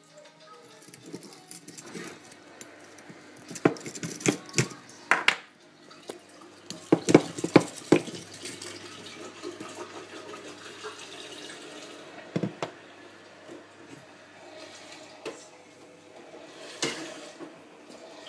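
Water running and splashing, with sharp knocks and clanks in two clusters, about four to five seconds in and again about seven to eight seconds in.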